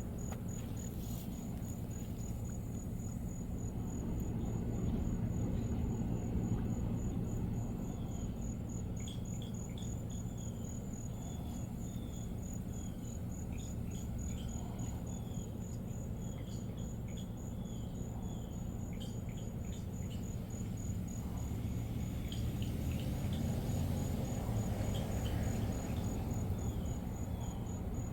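A cricket chirping steadily in a high, evenly pulsed rhythm over a constant low rushing background. Runs of short falling chirps join in from about a third of the way through.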